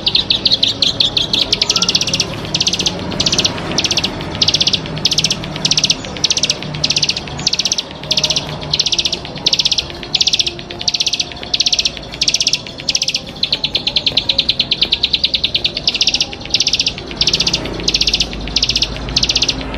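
A small songbird kept as a 'ciblek padi' singing hard: loud, rapid, high buzzy trills given as short phrases about twice a second, running into longer unbroken trills at the start and again about two-thirds through.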